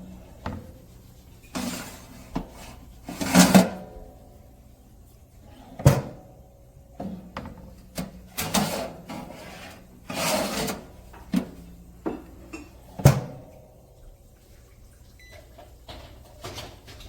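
Irregular knocks and clicks mixed with short scraping or rustling bursts, about a dozen in all, with quiet gaps between them.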